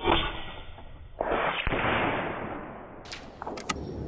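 Handling noise from a .30 caliber Skout EPOCH PCP air rifle between shots: a sudden thump at the start, about a second of rustling, then a few sharp clicks near the end.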